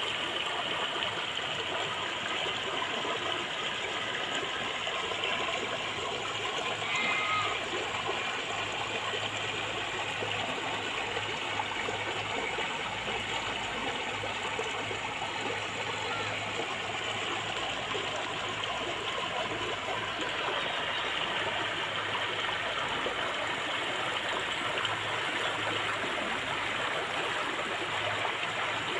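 Shallow stream running over rock ledges: a steady rush and babble of water through small riffles and a low cascade.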